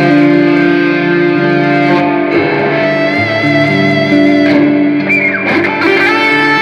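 Electric guitar playing held, sustained notes that change every half second or so. About five seconds in, the pitch swoops down and back up.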